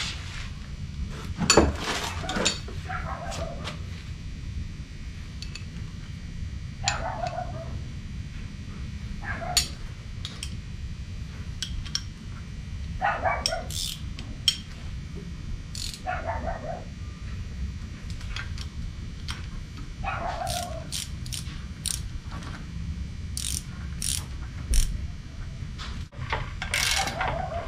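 Scattered clinks, knocks and rattles of metal hardware and wrenches being handled around a bushing press tool on a rear axle housing, coming every few seconds, with the sharpest knocks about two seconds in and near the end.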